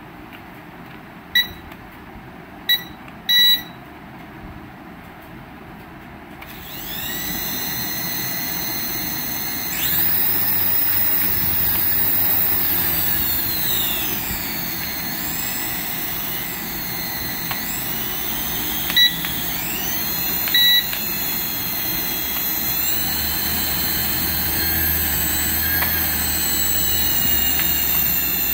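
Small electric motors of a toy coaxial RC helicopter held in the hand, spinning up about six seconds in and whining, the pitch rising and falling as the throttle is moved. A few short high beeps sound before the spin-up and twice more later.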